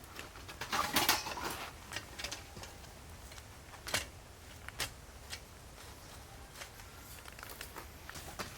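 Rustling and scattered clicks of things being handled, busiest about a second in, with a sharp click about four seconds in.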